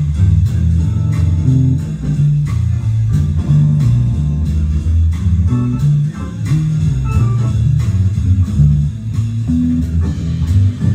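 Instrumental blues-style music led by a bass guitar playing a line of changing low notes, with guitar over it.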